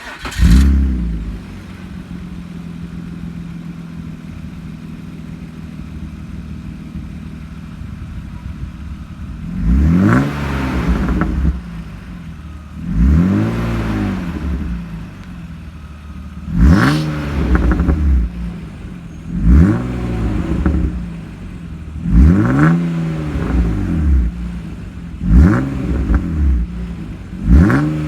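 A 1996 BMW 328is's inline-six catches and flares on start-up, then settles to a steady idle heard through a UUC Corse catback exhaust. About a third of the way in it is blipped seven times, each rev rising and dropping back to idle, with the car's stock crackle on the way down.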